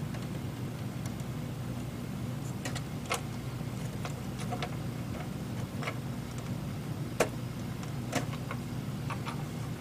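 Scattered small clicks and taps of fingers turning a lamp head's mounting nut against the metal housing of an emergency light unit, the sharpest two about seven and eight seconds in, over a steady low hum.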